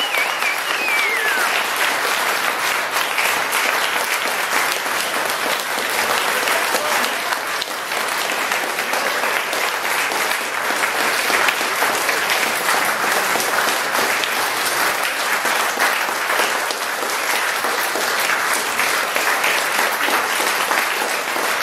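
A roomful of people applauding, many hands clapping steadily together. Near the start a high wavering tone rides over the clapping and falls away about a second in.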